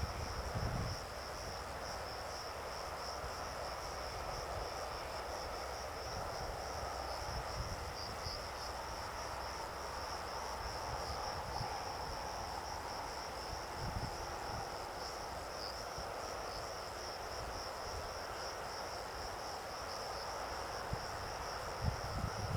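Insects chirring in one steady, unbroken high-pitched drone. There are low wind buffets on the microphone at the start and again near the end.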